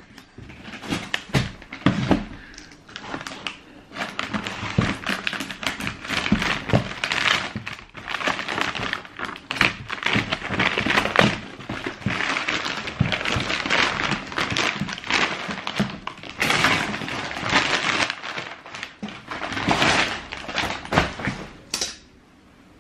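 Cardboard shoebox and paper wrapping being handled: a continuous run of rustling and crackling, broken by frequent light knocks and taps.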